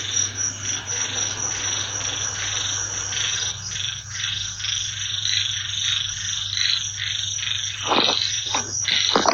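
Night chorus of frogs calling in rapid repeated pulses over a steady high insect drone, with a few brief sharper sounds near the end.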